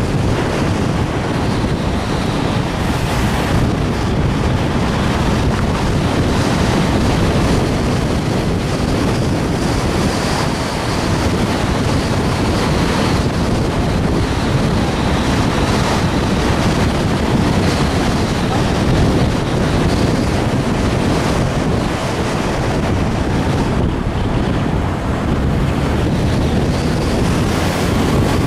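Steady wind rushing and buffeting on the microphone of a camera riding on a moving car, with a low road rumble underneath.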